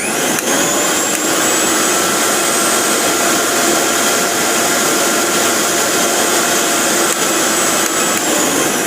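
Usha 750-watt mixer grinder motor running at full speed with a loud, steady whine. It comes up to speed within about half a second of switching on and starts to slow near the end.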